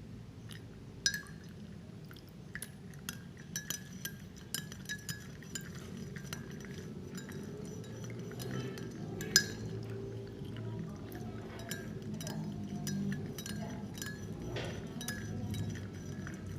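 A spoon stirring warm water in a glass, clinking against the glass again and again at an uneven pace, with two louder clinks about a second in and a little past halfway.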